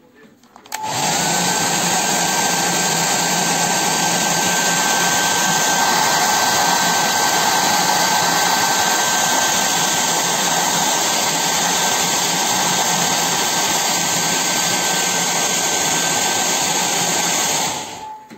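Hand-held hair dryer switched on about a second in, running steadily with a whine over the rush of air, then switched off near the end. It is blowing on a luggage sticker to loosen it from a suitcase.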